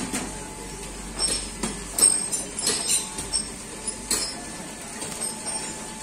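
Irregular knocks and clinks, about a dozen, the loudest about two seconds in, over a steady background hiss with a faint high-pitched whine.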